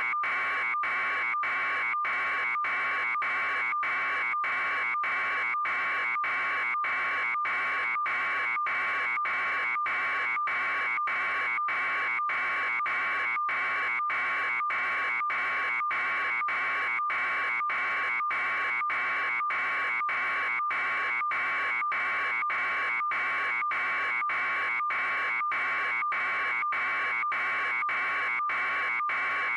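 A steady electronic buzzing tone, cut by short gaps at an even pace throughout.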